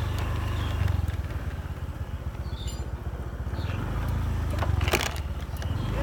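Small motorcycle engine running at low speed with a steady low pulsing beat, and a couple of sharp clicks about five seconds in.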